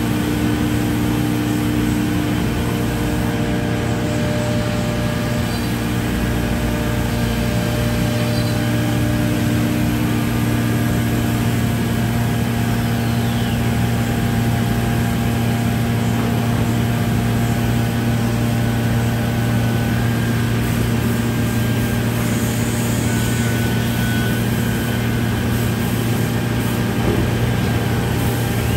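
Biesse CNC panel router running: a steady mechanical drone with several steady humming tones, one of which stops about twelve seconds in.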